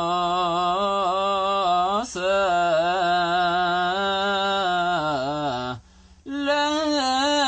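Ethiopian Orthodox liturgical chant in Ge'ez: a single voice sings long melismatic notes that waver up and down. It breaks briefly about two seconds in, pauses near the end, then resumes on a higher note.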